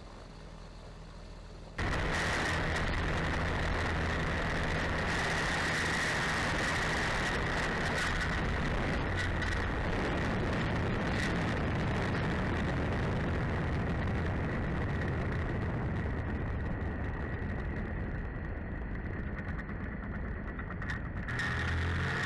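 Quicksilver GT500 ultralight's engine running at high power under a heavy rush of wind on a wing-mounted camera during the takeoff roll, with a steady whine on top. Before that, for about the first two seconds, there is a quieter, steady engine sound that cuts off suddenly into the loud rush.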